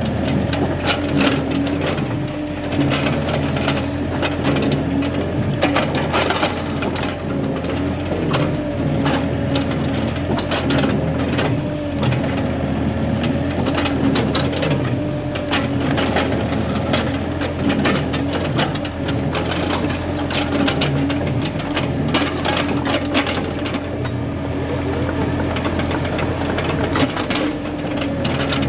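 Excavator running steadily with a continuous hum that wavers slightly in pitch, over many short knocks and scrapes of working against soil and stone.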